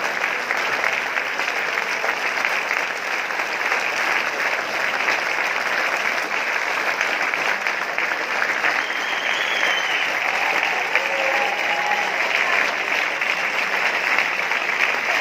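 Sustained applause from a large theatre audience of a couple of thousand people: dense, steady clapping that neither builds nor fades.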